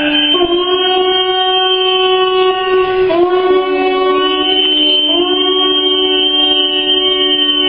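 Conch shell trumpet blown in long held notes, each starting with a short upward scoop in pitch; the note breaks and is sounded again about three seconds in and again about five seconds in.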